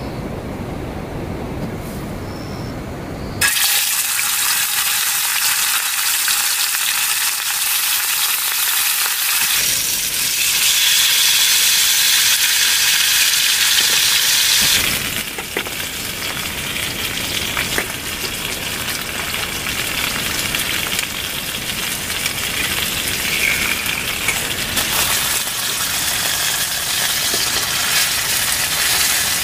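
Hot oil sizzling steadily as masala-coated pieces pan-fry in a steel frying pan on a portable gas stove, starting suddenly about three seconds in. Before that there is a low, steady rumble.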